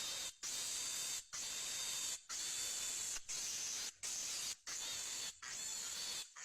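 Steady hiss, strongest in the treble, broken by brief dropouts about once a second.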